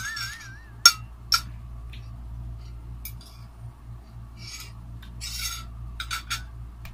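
Metal fork scraping and clinking against a clear glass bowl as the last noodles are gathered up: a sharp click about a second in, then several short rasping scrapes and a few more clicks. A high warbling whistle fades out in the first second.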